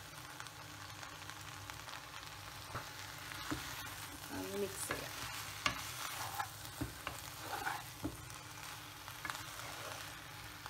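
Vegetables sizzling steadily in a non-stick pan over a low flame; from about three seconds in, a wooden spatula stirs them, with scattered scrapes and knocks against the pan.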